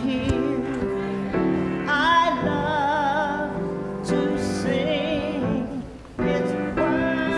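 Gospel song in a church service: a singer holding long notes with wide vibrato over sustained keyboard chords, with a short break about six seconds in before the music comes back.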